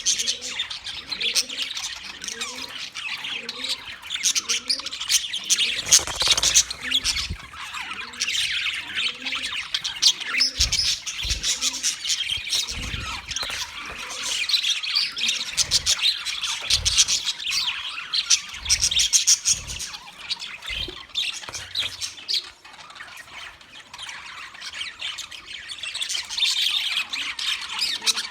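A flock of budgerigars chattering, many rapid overlapping chirps and squawks at once, with a few short low thumps in the middle.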